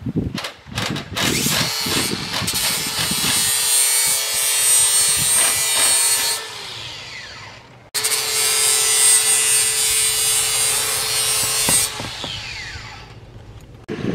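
Cordless drill running in two long steady runs of about five seconds each, each one spinning down when the trigger is let go; a few knocks come before the first run.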